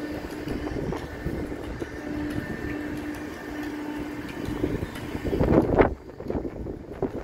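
Wind buffeting the microphone in an uneven low rumble, with a faint steady hum underneath. A stronger gust comes about five and a half seconds in and drops away sharply.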